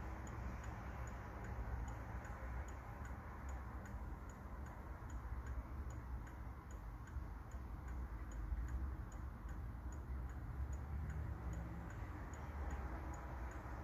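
Lenzkirch-style German quarter-strike mantel clock movement ticking steadily, its pendulum escapement beating evenly, over a low steady rumble.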